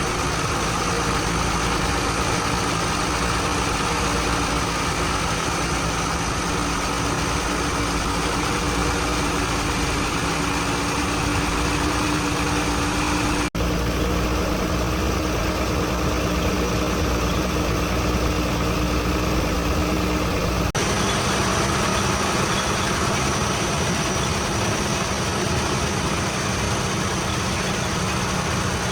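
Heavy vehicle's diesel engine running steadily at an even pitch, with no revving. The sound shifts abruptly twice, a little under halfway through and again about two-thirds of the way in.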